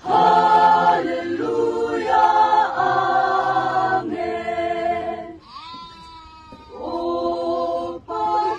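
Choir singing held chords in close harmony. About two-thirds through, the choir stops and a goat bleats one long call that wavers, then slides down in pitch and holds. The choir then comes back in with more chords.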